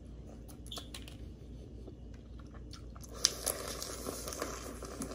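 Close-up eating sounds of boiled crawfish: small clicks and cracks of shells being peeled by hand, then, about three seconds in, a longer, noisier stretch of sucking and chewing as a crawfish is held to the mouth.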